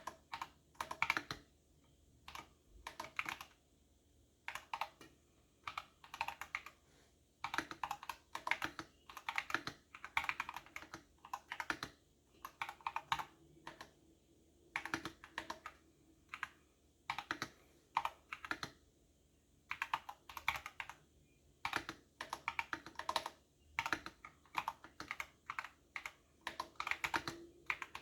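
Typing on a computer keyboard: quick clusters of key clicks in bursts of a second or so, broken by short pauses.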